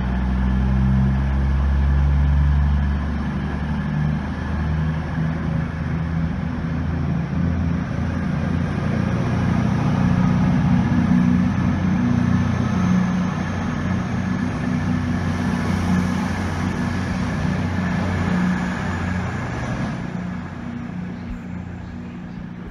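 CrossCountry Voyager diesel multiple unit departing, its underfloor diesel engines working under power with wheel and rail noise as it pulls away past the platform. The sound fades over the last few seconds as the train draws off.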